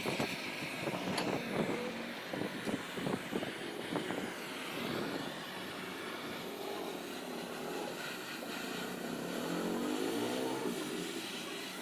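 Irregular clicking and knocking for the first few seconds, then a motor running with a steady whir and a wavering tone.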